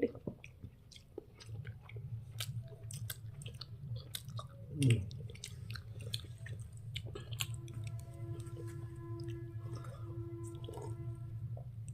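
A person chewing a mouthful of roti and potato curry close to the microphone, with many small irregular wet mouth clicks over a steady low hum.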